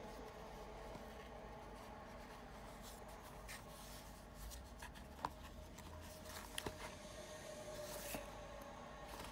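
Faint rubbing and light ticks of a small cardboard window box being turned over in the hands, with a few sharper clicks, the loudest about five seconds in, over a faint steady hum.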